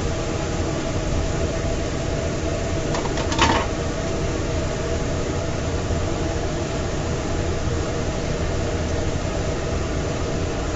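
Steady whir of a fan in a food trailer kitchen, with a low hum. A short clatter comes about three and a half seconds in.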